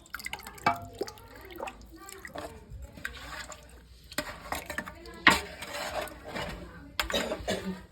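Dishes and utensils clinking and knocking in a kitchen, with scattered sharp clacks and a short rush of noise, like water or contents being poured, about five seconds in.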